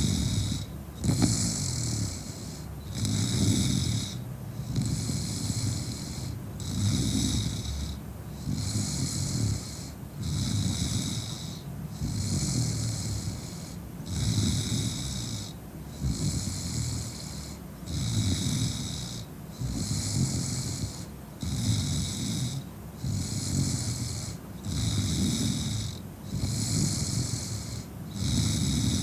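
A woman snoring in a deep drunken sleep, a rough snore about every two seconds in an even rhythm.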